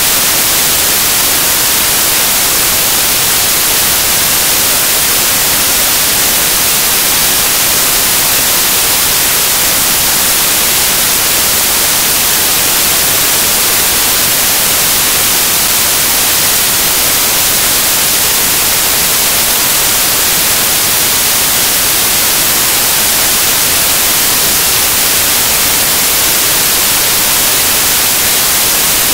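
Loud, steady electronic static hiss, brightest in the high treble, with no other sound in it.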